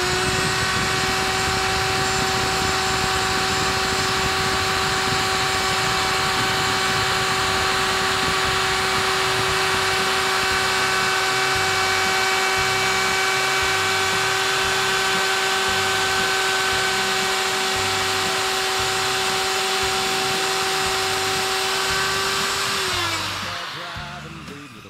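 Handheld electric router running at full speed with a steady high whine, cutting letter grooves into a cedar board. It winds down with a falling pitch near the end as it is switched off.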